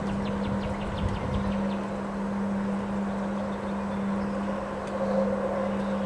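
Storm wind in bare trees, rumbling on the microphone in gusts that are strongest in the first second and a half, over a steady low hum. Short high chirps come through now and then, most in the first second or so.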